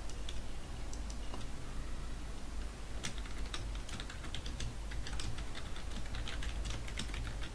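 Typing on a computer keyboard: a few scattered keystrokes at first, then a quick run of keystrokes from a little before halfway on.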